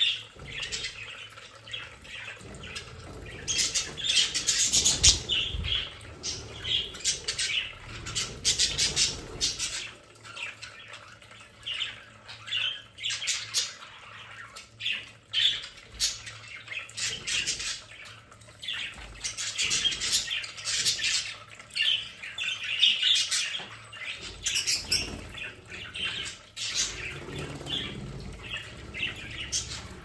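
A flock of budgerigars chattering and squawking, with many short high-pitched chirps coming in busy clusters, and wings flapping now and then.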